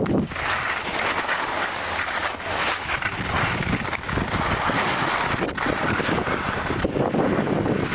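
Skis scraping and hissing over packed, chopped-up snow on a fast downhill run, with wind buffeting the microphone; a continuous rushing noise that swells and dips with the turns.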